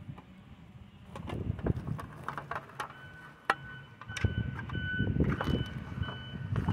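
Footsteps crunching on ash, sawdust and burnt debris as the faller walks up close, with knocks and clinks of handled gear, growing louder toward the end. A faint high beeping tone sounds on and off from about halfway through.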